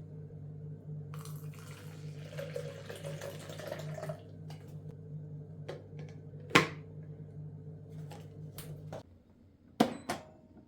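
A coffee machine runs with a steady hum while liquid pours for a few seconds. The hum stops about nine seconds in. Sharp clicks come a few times, two of them close together near the end.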